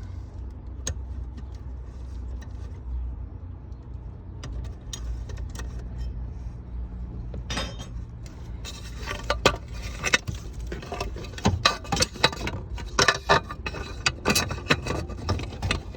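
Metal tools and parts clinking and rattling irregularly, starting about halfway through with many sharp clinks, over a low steady hum.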